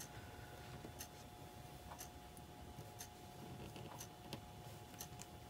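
Faint, regular ticking at about one tick a second, over a steady hum.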